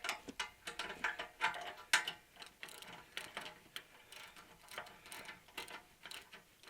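Irregular metallic clicks and clinks, several a second, as a bench vise is tightened down on a steel table.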